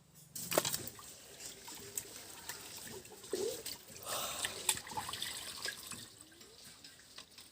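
Water splashing and dripping, uneven, with sharper splashes about half a second in and again around four to five seconds in, then easing off near the end.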